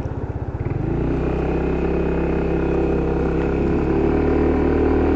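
Motorcycle engine at low revs, its separate firing pulses audible, then picking up about a second in and running steadily as the bike rides along.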